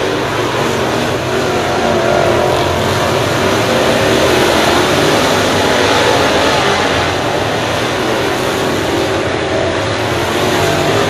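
Dirt late model race cars racing on a dirt oval: a steady, loud din of several V8 engines at full throttle, with cars passing close by.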